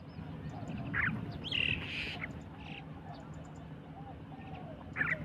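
A flock of mynas giving harsh, squawking calls in short loud bursts, about a second in, again just before the middle, and near the end, over a steady low hum.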